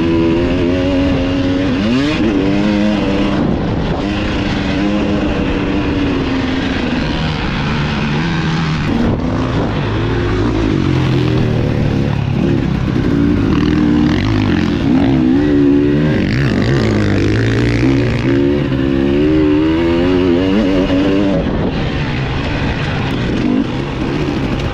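Dirt bike engine being ridden hard, its pitch rising and falling again and again as the throttle is opened and closed and the gears change.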